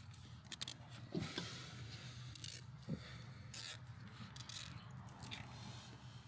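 Plastic zip ties being pulled tight and handled: several short, separate rasping bursts over a low steady hum.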